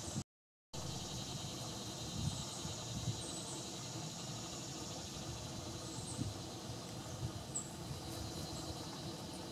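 Steady insect chorus, a fast pulsing high trill of crickets or katydids. A few short, very high chirps sound over it, along with a low background rumble. The sound cuts out for about half a second just after the start.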